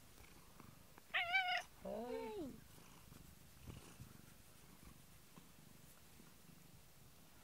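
A cat purring while being stroked, with two short meows about a second in: a high one with a wavering pitch, then a lower one that rises and falls.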